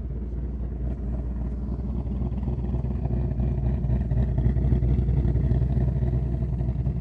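Ford Mustang GT's V8 idling through an H-pipe, resonator-deleted exhaust, growing gradually louder as a ghost cam idle tune is selected.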